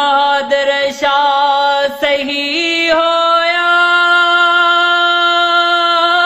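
A man singing a Punjabi Sufi kalam solo, with no instruments: a run of short ornamented notes, then, from about three seconds in, one long high note held steady on a vowel.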